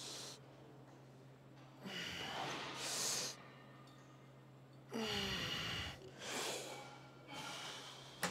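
A man breathing hard and forcefully through several reps of a cable-machine back exercise, a few heavy breaths in a row, with the later ones about a second apart. A steady low hum sits underneath.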